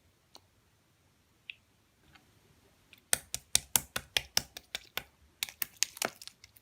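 Slime being pressed and squeezed by hand, giving a few faint clicks and then, from about three seconds in, a fast run of sharp clicking pops, four or five a second.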